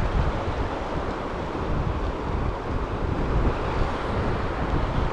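Wind buffeting the microphone in uneven gusts over a steady rush of flowing river water.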